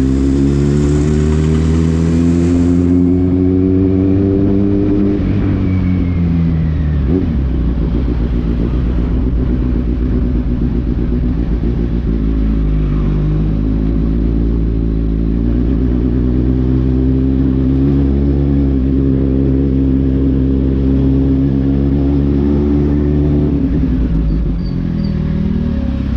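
Kawasaki Z800 inline-four engine running through a non-stock exhaust while riding. Its pitch climbs for the first five seconds, then falls, then rises slowly again before dropping near the end.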